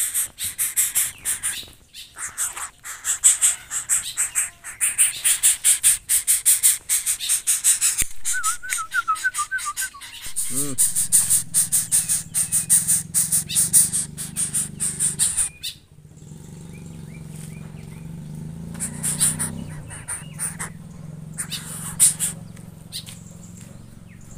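Young coucal giving rapid, harsh rattling begging calls as it is hand-fed. The calls stop suddenly about two-thirds of the way through, leaving only a few isolated rasps over a low steady hum.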